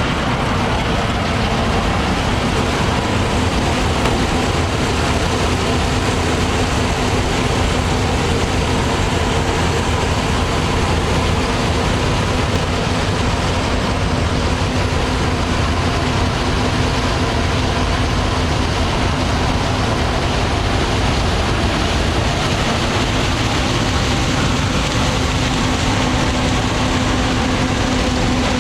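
Heavy farm machinery running steadily, a constant engine drone with an even mechanical hum.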